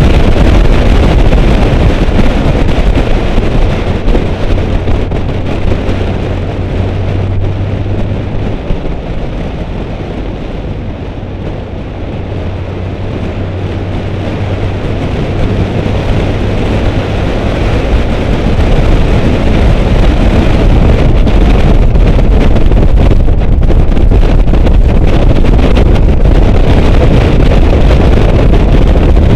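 Heavy wind buffeting on the microphone of a camera mounted outside a Porsche 944 at track speed, with the engine running underneath. The roar eases for several seconds in the middle, as the car slows for a turn, and builds back up through the second half.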